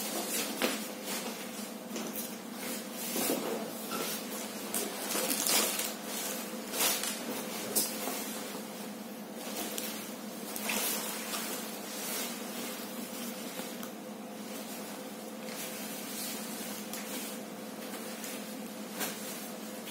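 Irregular rustles and knocks, more of them in the first half, over a steady low hum.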